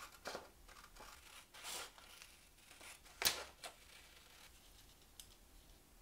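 Scissors cutting through sheets of paper in a series of short snips with paper rustling, the sharpest and loudest snip a little over three seconds in.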